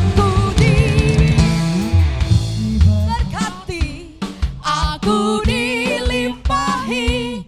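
Live worship band playing: drum kit, bass and other instruments, with a singer. The band thins out briefly about three seconds in, then sung lines with vibrato come in over it.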